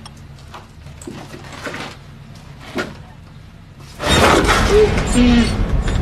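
Horror-film soundtrack: a quiet stretch with a few faint knocks, then about four seconds in a sudden loud burst of noise, a jump scare, with short voice-like cries inside it.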